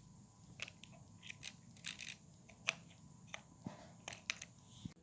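Faint, irregular light clicks and taps, about a dozen of them, over a quiet room hum.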